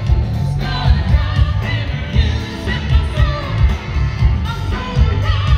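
Live blues band playing: electric guitar with a pulsing bass and drum beat under a woman and a man singing.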